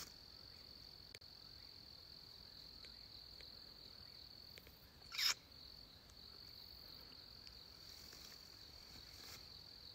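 Steady, high-pitched trilling of night insects such as crickets, running without a break. About five seconds in, one short, loud, sharp sound cuts across it.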